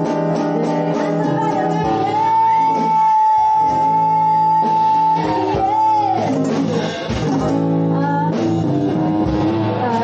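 Live band playing: electric guitar and drum kit, with singing. A long high note is held from about two seconds in to about six seconds, bending in pitch at its start and end.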